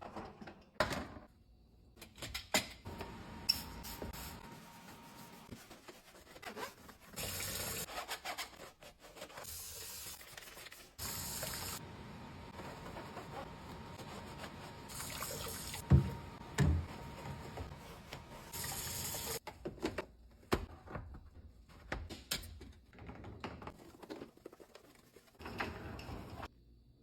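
A dishwasher filter being rinsed and scrubbed under running tap water: the water runs in short spells, with rubbing and handling noise between them and a few sharp knocks, the loudest about sixteen seconds in.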